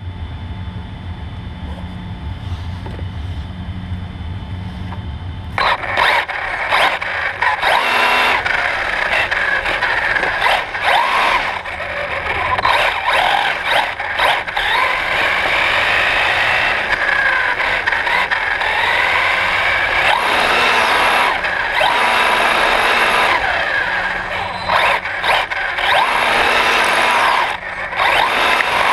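Himoto 1/8 scale brushless RC car heard from on board: a low hum for the first few seconds, then, about five and a half seconds in, the car pulls away. The brushless motor and drivetrain whine rises and falls in pitch with the throttle, over tyre noise on the concrete floor, with frequent short breaks as it lets off.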